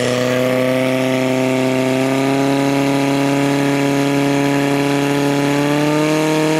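Portable fire pump's engine running steadily at high revs under load, pumping water through the hose lines to the nozzles. A steady engine tone that rises slightly in pitch near the end.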